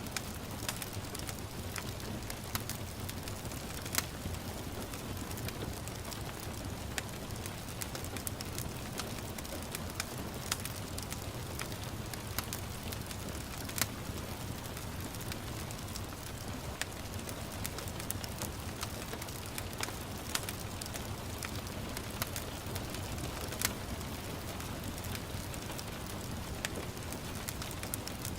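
Wood fire crackling, with irregular sharp pops and snaps over a steady hiss of gentle rain.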